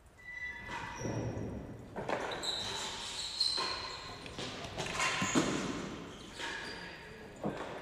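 Real tennis (jeu de paume) rally: a string of sharp knocks as the ball is struck by rackets and bounces off the walls, floor and penthouse roof, each knock echoing in the large indoor court.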